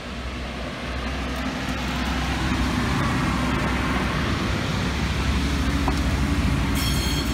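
A Siemens Desiro Classic diesel multiple unit passing close by, its underfloor diesel engines running steadily and growing louder over the first few seconds. A brief high-pitched wheel squeal comes near the end.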